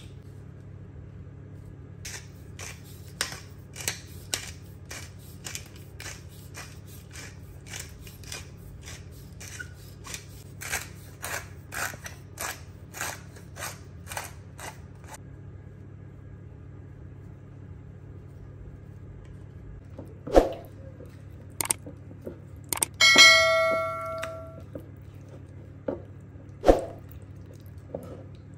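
A spice jar shaken over a bowl, a steady run of sharp shakes about two a second for some thirteen seconds. Later come a few knocks of kitchenware and one short ringing clink.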